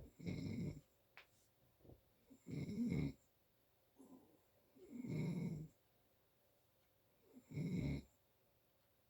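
A sleeping person snoring, four snores about two and a half seconds apart. The sleeper puts the snoring down to allergies.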